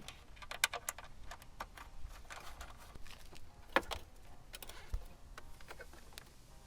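Irregular light clicks and taps of bolts and small metal parts being handled and fitted into their mounting holes, with one sharper click a little under four seconds in.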